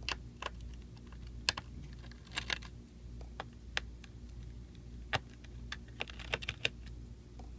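Irregular sharp clicks and taps of a precision screwdriver working small screws out of a laptop's plastic bottom chassis, some coming in quick little clusters, over a steady low hum.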